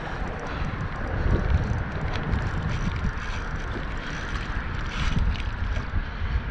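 Wind buffeting the microphone over water washing and splashing along a kayak's hull, as a hooked jack crevalle tows the kayak through choppy water.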